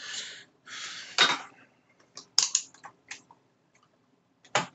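Hand tools and multimeter test leads being handled and set down on a hard workbench: two short scraping rustles, then a run of small clicks and taps, with one sharp knock near the end.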